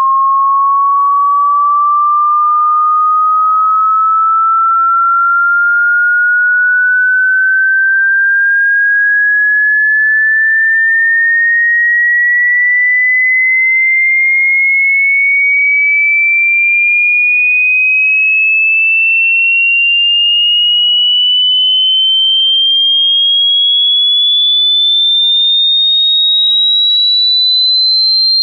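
A single pure electronic sine tone, loud and steady, gliding slowly and evenly upward in pitch from a high whistle to a shrill one. It is a water-ejection tone sweep, played so that the vibration shakes water out of a phone's speaker or earphones.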